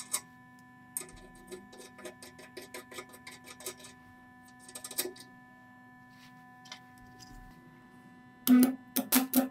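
A hex nut spun by hand down a steel threaded rod, its threads clicking rapidly against the rod, over a faint steady hum. The clicking stops about four seconds in, with a short run of clicks a second later. Near the end, loud crackling bursts come as a welding arc is struck on the nut.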